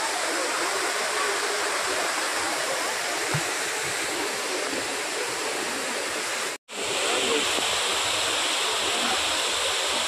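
Waterfall rushing steadily down a sloping rock face. The sound breaks off for an instant about two-thirds of the way through, then resumes.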